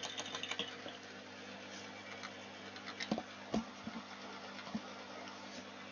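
Faint taps and scratches of small tools handling a soldered practice circuit board during cleanup, over a steady low electrical hum.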